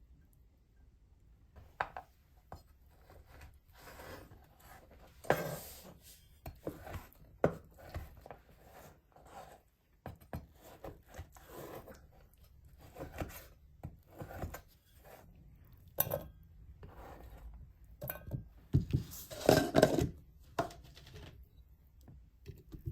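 Irregular taps, knocks and scraping of hard objects being handled, with a louder cluster about five seconds in and another near the end.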